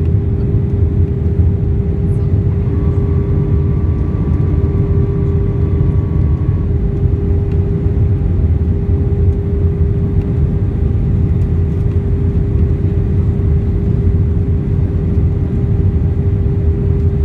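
Steady airliner cabin noise inside an Airbus A319-131 with IAE V2500 engines: a deep engine and airflow rumble with a constant hum. About three seconds in, a faint higher tone joins and fades out about four seconds later.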